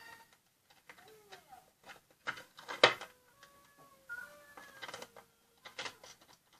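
Crayons scratching and tapping on a plastic sour-cream tub as it is coloured, with one sharp knock about three seconds in.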